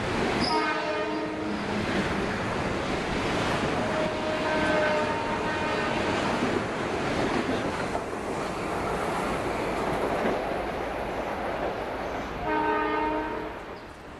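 Metro-North electric commuter train running out past the platform with a steady rushing rumble of wheels on rail. Its horn sounds shortly after the start and again near the end, and there is a fainter tone in the middle. The rumble fades away in the last second.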